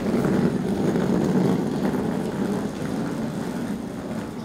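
Passenger train running on the rails, a steady low rumble that starts suddenly and slowly fades.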